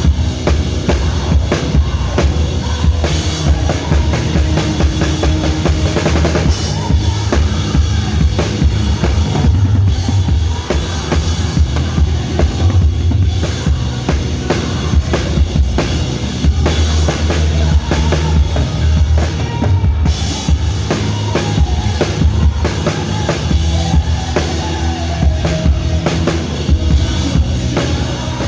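Drum kit played with a live worship band, bass drum and snare loud and up front over the band, keeping a steady beat.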